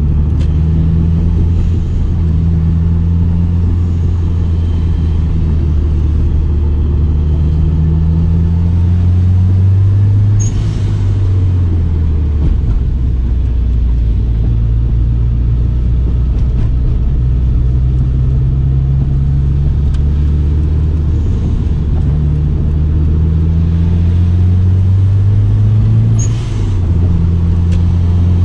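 2004 Subaru Impreza WRX STI's turbocharged flat-four engine pulling steadily under load, its pitch climbing slowly. It drops sharply twice, about ten seconds in and again near the end, with a short burst of higher-pitched noise each time, as the car shifts up a gear.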